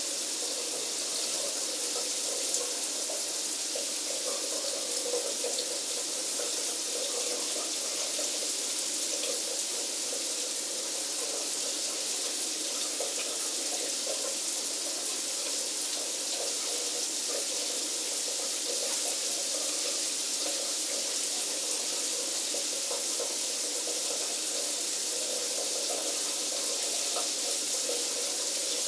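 Shower running steadily: a constant, even hiss of spraying water.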